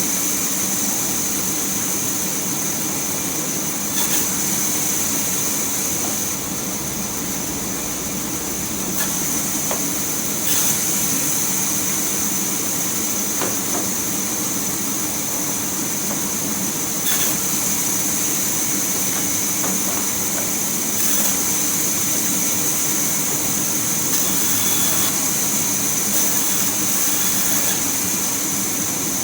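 Sawmill machinery running steadily, with a constant high whine over a low mechanical rumble and a few sharp knocks or clanks every several seconds.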